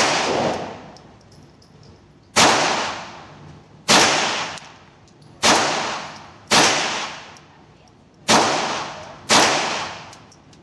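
.22 LR semi-automatic pistol fired seven times at an uneven pace, one to two seconds apart, each shot echoing off the concrete walls of an indoor range.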